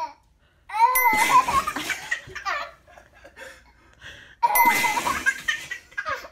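Baby laughing in two loud bursts, about a second in and again about four and a half seconds in, with an adult laughing along.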